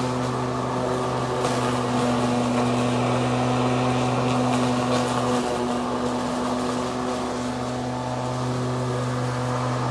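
2006 Craftsman 19-inch corded electric mulching lawn mower running while mowing: a steady electric motor hum with the rush of the spinning blade.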